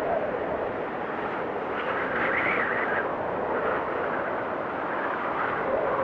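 Strong wind blowing in a snowstorm: a steady rush that swells and eases, with a higher whistling note rising about two seconds in.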